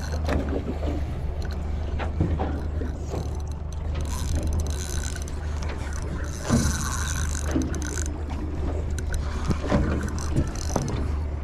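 Spinning reel working against a hooked fish: the handle being cranked with its gears clicking, and two stretches of higher whirring, about four and about six and a half seconds in, as the fish pulls. A steady low hum runs underneath.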